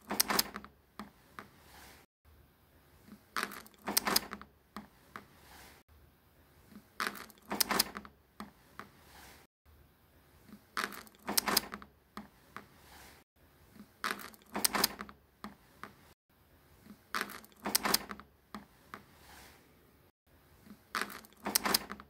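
Clicks made with a person's mouth, standing in for a ceiling fan pull-chain click, in short groups of a few sharp clicks that come back about every three and a half seconds.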